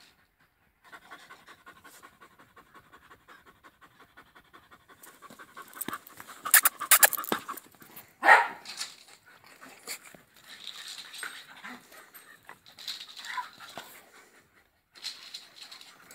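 Excited dogs panting quickly, with a high whine running through the panting. Loud sudden sounds come in a cluster about six to eight seconds in.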